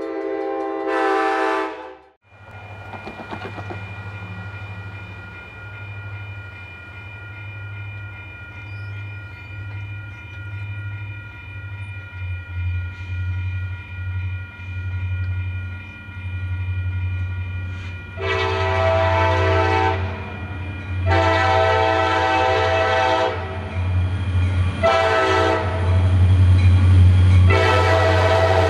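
A diesel locomotive's multi-chime air horn sounds one blast, the sound cuts off, and then CSX diesel freight locomotives rumble steadily on approach under a steady high ringing from the grade-crossing bell. Near the end the horn sounds two long blasts, one short and one long: the standard grade-crossing warning.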